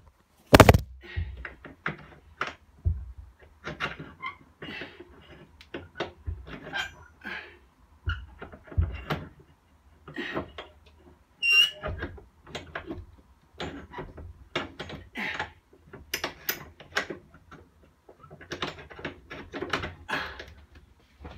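Handling noises: irregular knocks and clicks, with a loud thump about half a second in and a short high squeak near the middle.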